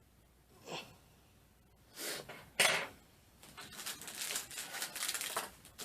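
Paper and packaging being handled while unpacking a box: a few short rustles, then about two seconds of steady crinkling and rustling.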